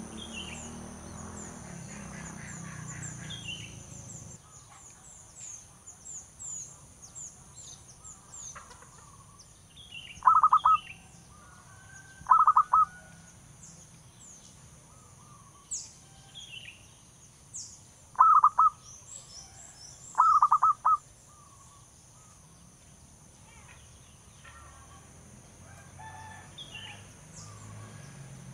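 Zebra dove calling: four short, rapidly trilled cooing phrases in two pairs, each pair about two seconds apart, over fainter chirps of small birds and a steady high insect drone.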